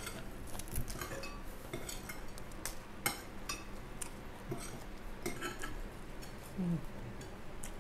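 Spoons and cutlery clinking against plates and bowls in a scattering of separate light clinks, as food is served and eaten.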